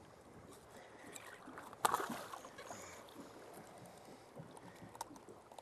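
A snook held at the waterline beside a boat splashes once, loudly, about two seconds in, over faint water and wind noise.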